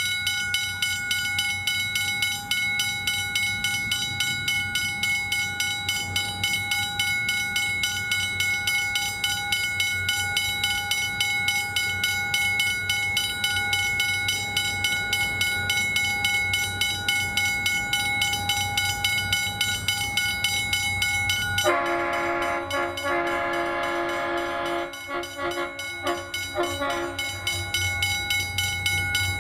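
Level crossing warning bell ringing in a rapid, steady repeat as the crossing lights flash. About 22 seconds in, the approaching diesel freight train sounds its horn, a chord of several notes lasting about five seconds. A low locomotive rumble grows louder near the end.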